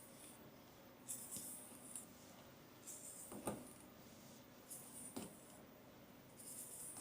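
Soft, intermittent rustling of hands rubbing over hair and scalp during a head massage, in short bursts, with two sharp clicks in the middle.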